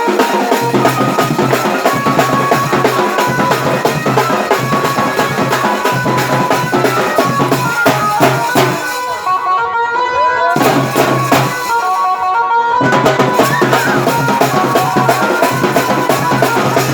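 Dance music with a steady drum beat and a bass line. The bass and drums drop out for about a second and a half around nine seconds in, then come back.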